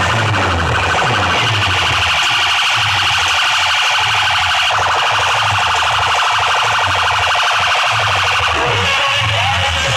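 Loud DJ sound-system music with a heavy, repeating bass beat under a rapidly pulsing, siren-like electronic tone.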